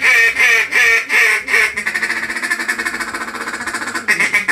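Rais~A~Ruckus Torch triple-reed duck call blown as a mallard call. It gives a run of loud, raspy quacks at about three a second. About two seconds in it changes to a fast, rolling feed chuckle, and near the end it quacks again.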